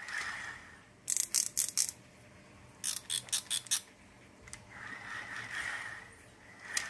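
Daiwa GS6000 rear-drag spinning reel being worked by hand: two quick runs of ratchet-like clicks, about five each, then the handle turned with a soft whirr about five seconds in. The reel is running a little dry of oil.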